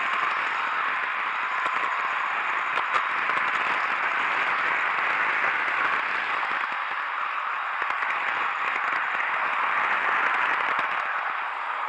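TOMIX 189 series N-gauge model train running along the track, heard from a camera riding on it: a steady rushing noise from motor and wheels on rail, with a few faint clicks.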